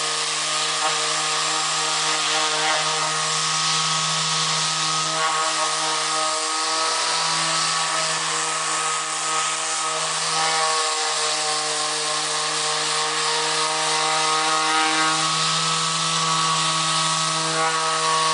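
Bosch GSS 280 AE electric orbital sander running steadily: a constant motor hum under a hiss, with the hum easing briefly twice.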